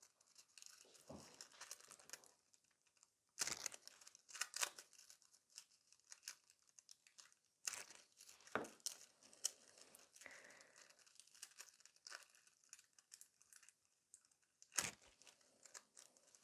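Very quiet handling noise from fingers and small tools on a plastic nail tip: faint crinkling and scratching with a handful of short sharp clicks spread through.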